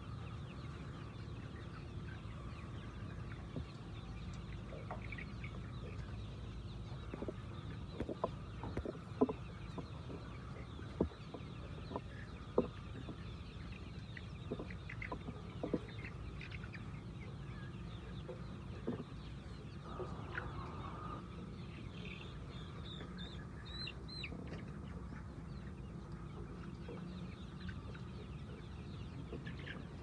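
A large flock of white chickens clucking and calling over a steady low hum. Short sharp calls and ticks come thickest in the middle, and a run of higher-pitched calls comes about two-thirds of the way in.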